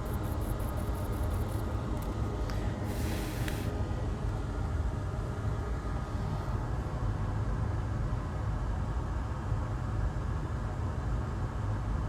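Steady low background rumble of workshop noise, with a short hiss about three seconds in.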